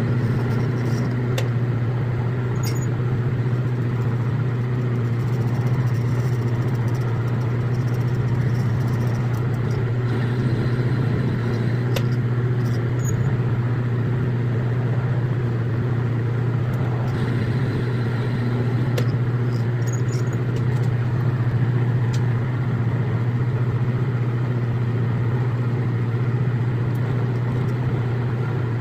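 Metal lathe running steadily while a rifle barrel is threaded, a constant low machine hum with a few faint light clicks, the audio sped up to double speed.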